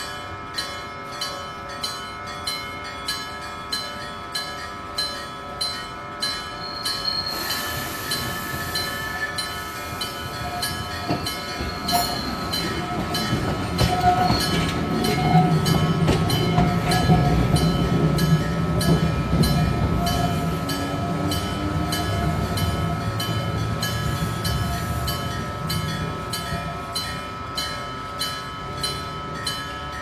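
A level-crossing warning bell clangs about twice a second while Randen trams run through the station. Their motor and wheel noise builds from about seven seconds in, is loudest around the middle and then fades, and the bell's steady clanging stands out again near the end.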